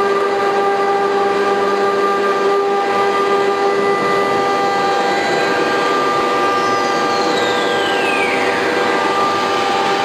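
CNC router spindle running with a steady high whine while routing a wooden door panel, over a rushing cutting noise. About halfway through, a second whine falls steadily in pitch over about four seconds.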